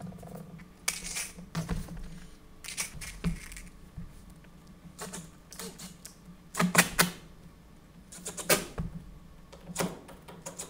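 Cordless drill driving screws through a masonite sheet into the stage's plywood sub-floor. It comes in several short bursts of rapid clicking, one every second or two.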